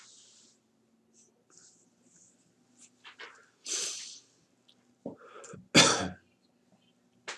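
A person sneezing: a short noisy breath about four seconds in, then a loud sneeze about six seconds in.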